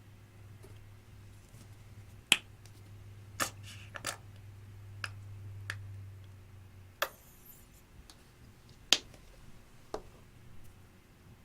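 Glossy slime being squeezed and folded by hand, giving sharp pops and clicks, about eight of them at irregular intervals.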